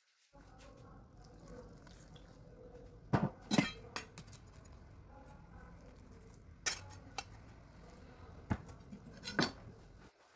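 Kitchen utensils clinking against cookware, about seven sharp knocks spread out at irregular intervals, over a steady low hum.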